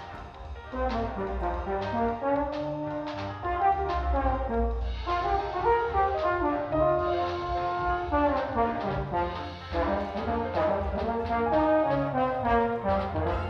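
Trombone playing a jazz blues solo over a recorded backing track.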